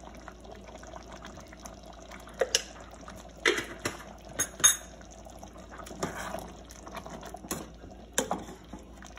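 Metal ladle stirring a thick stew in a stainless steel pot, with liquid sloshing and the utensils clinking sharply against the pot several times at irregular intervals.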